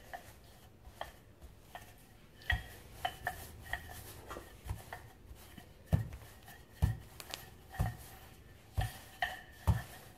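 Wooden rolling pin being worked back and forth over a disc of layered croissant dough, giving irregular soft thumps and light wooden knocks against the worktop, more frequent in the second half.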